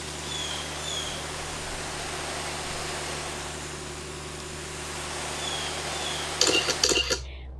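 Garden hose spray nozzle spraying water onto garden beds: a steady hiss.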